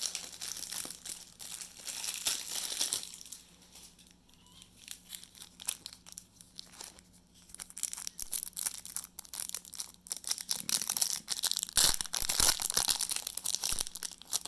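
Foil trading-card booster pack crinkling and being torn open by hand. There is crinkling at the start, quieter handling and light clicks in the middle, and a louder stretch of crinkling and tearing near the end.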